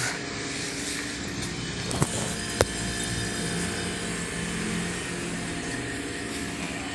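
GE two-door automatic-defrost refrigerator's compressor running with a steady hum, now starting and running normally after a repair for a compressor that would not start. Two short sharp clicks come about two and two and a half seconds in.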